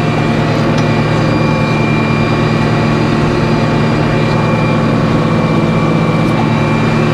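Sawmill machinery running steadily between cuts: a low, even engine hum with a thin steady high whine over it.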